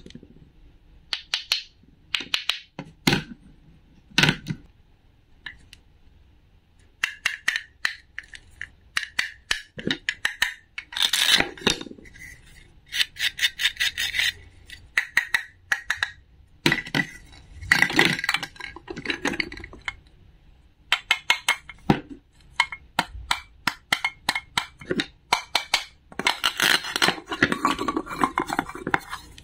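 Wooden toy fruit halves joined by velcro pads being pulled apart and pressed together, giving rasping rips several times. Between the rips come sharp clicks and taps of the wooden pieces and toy knife on a wooden board.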